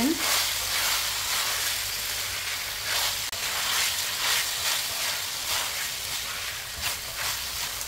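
Ground pork filling with diced vegetables sizzling in a stainless steel pan as a wooden spatula stirs and scrapes it in repeated strokes, with a steady frying hiss underneath.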